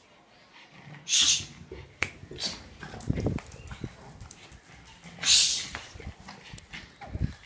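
A pug making two short, loud, hissy bursts of breath, about a second in and again about five seconds in, with scattered low bumps between.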